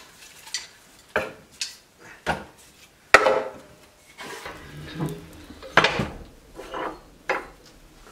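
Irregular knocks and clatters of hard objects being handled and set down, about half a dozen sharp hits with softer rattling between them, the loudest a little past three seconds in.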